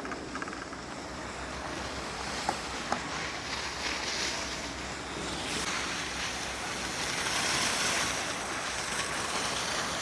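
Steady rushing hiss of sliding over snow, with wind on the microphone; it builds gradually and is loudest near the end, with a couple of small clicks early in.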